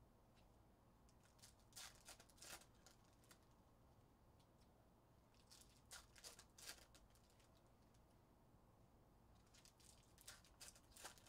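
Faint crinkling and tearing of foil trading-card pack wrappers being ripped open, in three short spells about two, six and ten seconds in.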